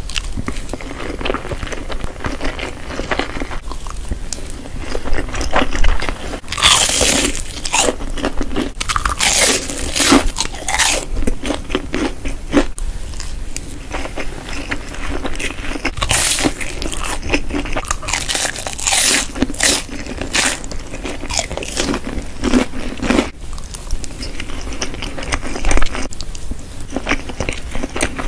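Close-miked eating: crunching bites into fried breaded balls and slurping and chewing spaghetti, with a dense, irregular run of crunches and slurps, loudest in a few longer stretches.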